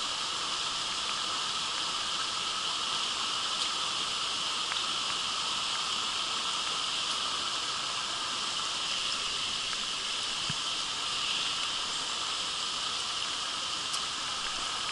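Steady rush of a shallow, rocky creek running over stones, mixed with rain falling.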